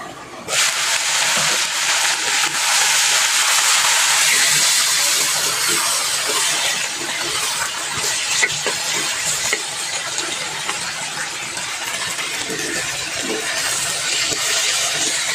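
Sliced okra and onions frying in hot oil in a pan: a steady sizzle that starts suddenly about half a second in. A metal spatula stirring the vegetables adds a few light clicks and scrapes.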